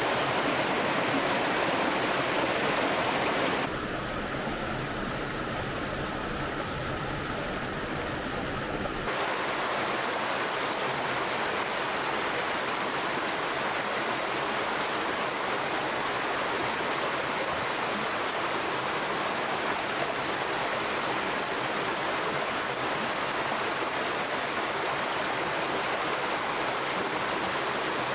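Steady rushing of running water. From about four to nine seconds in it is duller, with less hiss, then returns to its full sound.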